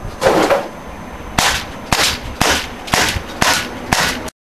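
HK USP CQB CO2 airsoft pistol firing: a louder burst of noise just after the start, then six sharp shots about half a second apart, after which the sound cuts off suddenly.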